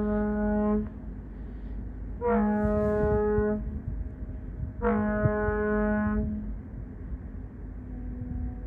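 Ship's whistle on a Great Lakes freighter, the James R. Barker's forward whistle, sounding a series of blasts. One blast ends about a second in, and two more of just over a second each follow. This whistle is used when the supply boat comes alongside. A fainter steady whistle tone carries on near the end.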